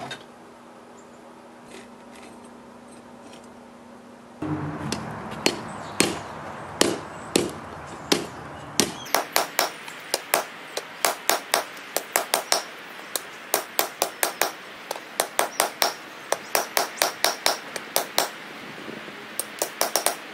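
A hand hammer striking a red-hot forge-welded wrought iron and 1084 high-carbon steel bar on an anvil. The blows are sharp and repeated, sparse at first and then a steady run of about three a second. The first few seconds before the hammering hold only a faint steady hum.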